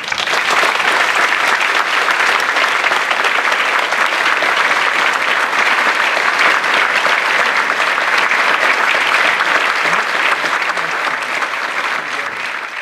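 A large audience clapping: dense, steady applause that starts suddenly and begins to die away near the end.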